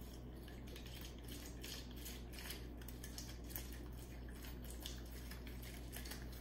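Half a lemon being twisted and pressed on a plastic hand juicer: faint, irregular scraping and clicking over a steady low hum.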